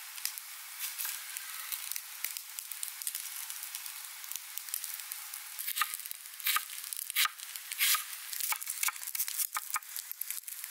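Kitchen knife slicing an onion on a wooden board: from about halfway, a run of sharp, uneven knocks as the blade cuts through and hits the board. Underneath is a steady crackling hiss from the wood campfire.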